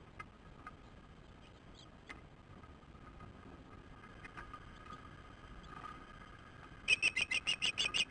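Osprey calling: a rapid run of sharp, high, whistled chirps, about eight a second, starting near the end, after a few faint scattered peeps.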